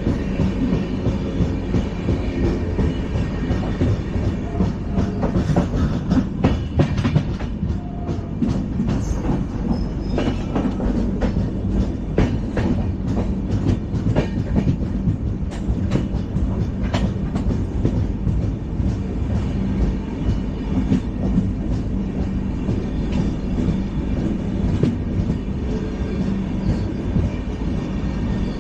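LHB passenger coach running on the rails: a steady low rumble of wheels on track, with a scatter of sharp clicks and knocks through the middle stretch.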